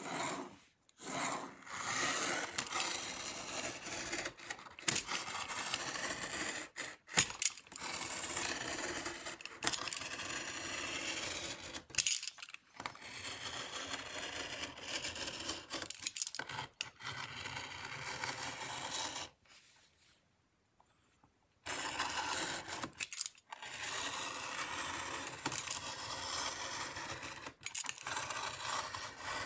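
Utility knife blade drawn through leather along a metal ruler, cutting thin strips. It comes as a series of long scraping strokes, each a few seconds long, with short pauses between, and about two seconds of silence around two-thirds of the way through.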